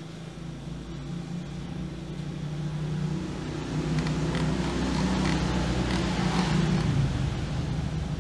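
Low engine-like hum that grows louder over several seconds, is loudest about five to seven seconds in, then begins to ease.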